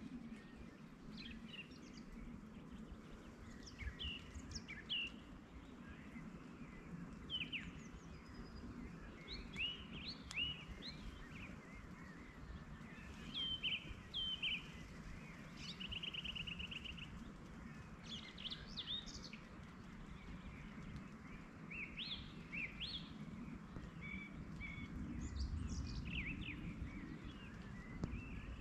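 Songbirds chirping and calling, many short sharp calls throughout with a brief rapid trill about halfway, over a low steady rumble.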